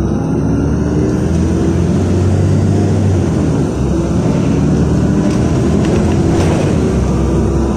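Inside the cabin of a LiAZ 5292.67 city bus under way: its YaMZ-53624 compressed-natural-gas engine and drivetrain hum, the engine note rising over the first few seconds, with tyre and road noise underneath. The sound dips briefly about three and a half seconds in.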